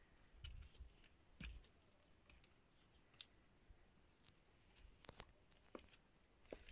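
Near silence: faint scattered clicks and a few soft low thumps from footsteps and from handling of a camera carried while walking.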